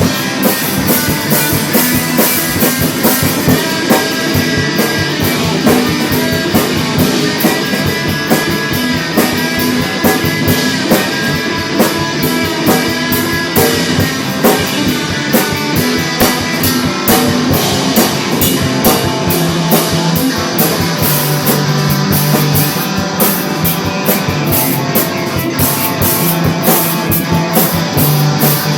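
Rock music with a drum kit and guitar, playing a steady, driving beat.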